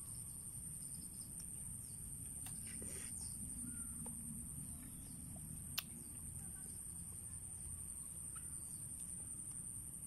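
Quiet rural outdoor ambience: a steady high-pitched insect drone with a few faint bird chirps, and a single sharp click about six seconds in.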